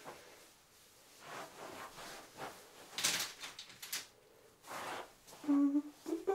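Knit fabric of a sweater dress rustling and swishing as the wearer moves and her hands brush along it, the loudest swish about three seconds in. Near the end a woman starts humming a tune.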